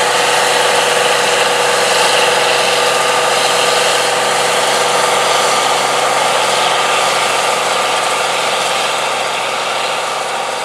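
International 1460 Axial-Flow combine's diesel engine and threshing machinery running under load while harvesting soybeans: a steady drone with a steady whine above it, fading near the end as the combine moves away.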